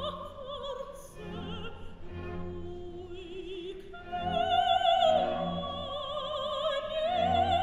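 Operatic soprano singing with a wide vibrato; about four seconds in she rises to a loud, held high note.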